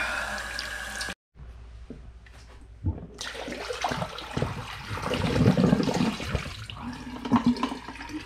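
Tap water running steadily for the film-developing rinse, cutting off abruptly about a second in. Then irregular splashing and pouring water with scattered knocks and clatter of handling.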